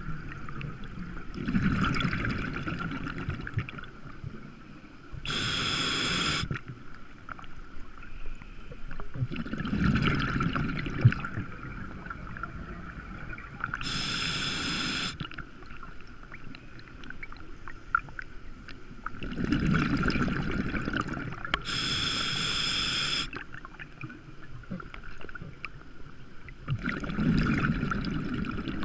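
Scuba diver breathing through a regulator: the short hiss of each inhale alternates with the longer, lower gurgle of exhaled bubbles, one breath about every eight seconds.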